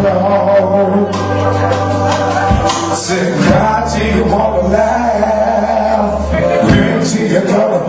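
A man singing with musical backing, his voice wavering over long held bass notes that change twice.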